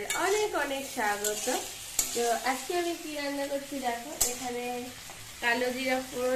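Potato strips frying and sizzling in a kadai while a steel spatula stirs and scrapes them, with a few sharp knocks of the spatula against the pan.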